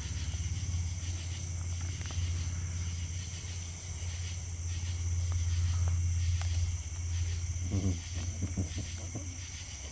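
Crickets chirping in steady, repeating pulses, with a constant low hum underneath and a few brief low sounds near the end.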